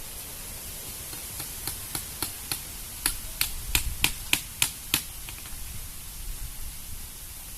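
A run of about a dozen sharp clicks, roughly three a second, growing louder and stopping about five seconds in, over a steady hiss.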